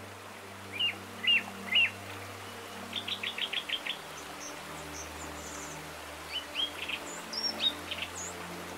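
Small songbirds chirping: three short chirps, then a quick run of about seven notes, then scattered chirps again near the end, over a low steady hum.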